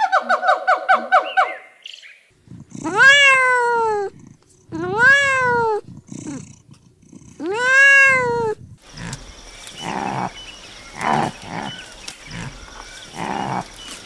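A kitten meowing three times, long calls that each rise then fall in pitch. A quick run of short, high, evenly repeated calls comes in the first two seconds, and softer irregular sounds follow the meows.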